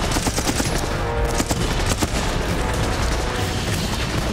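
Sustained battle gunfire, machine-gun and rifle shots in dense bursts, with a film score underneath.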